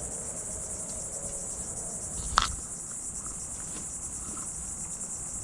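Insects, likely crickets, trilling steadily in a high, continuous drone. A single sharp knock, the loudest sound, comes about halfway through.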